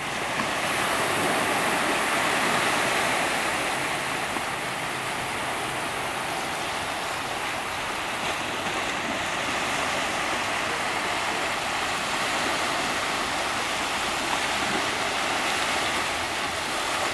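Steady rushing of water, an even noise with no breaks.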